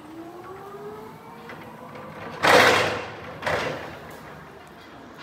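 Still FM-X14 electric reach truck driving off, its electric drive motor whining and rising in pitch over the first second. About halfway through, two loud short rushes of noise follow a second apart.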